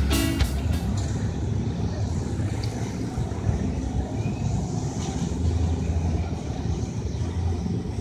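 Background music cuts off about a second in, leaving a steady low rumble of outdoor background noise with a light hiss.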